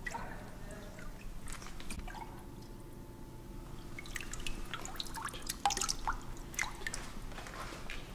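Liquid sulfur solution dripping and splashing lightly as a pitcher is dipped into a plastic drum and lifted out full, with scattered drips, more of them in the second half.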